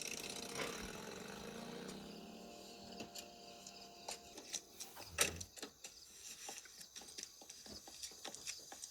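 A car engine winding down as the car pulls up, then a run of light knocks and clicks with one loud thud about five seconds in.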